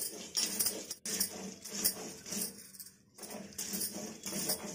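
Stone roller of a sil-batta grinding green chillies and garlic into a wet paste on the stone slab: rhythmic gritty scraping strokes, about two a second, with a sharp knock about a second in and a brief pause about three seconds in.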